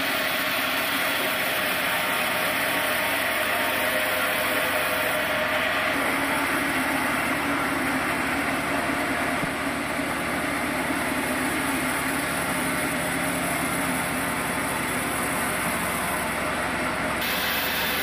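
Band sawmill running steadily, a continuous machine noise that holds an even level throughout.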